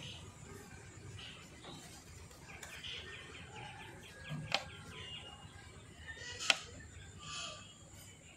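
Cauliflower being cut into florets, with two sharp snaps or knocks, one about four and a half seconds in and the louder one about six and a half seconds in. Birds chirp faintly in the background.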